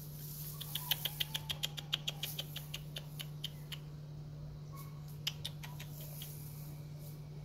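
Brush-tailed porcupine making a quick run of sharp clicks, about four or five a second for some three seconds and fading, with two more near the end.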